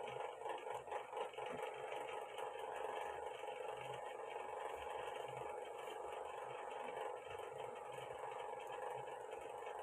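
Steady background hum, with a few light clicks and scrapes from a smartphone being handled and its SIM tray pushed in during the first second or so.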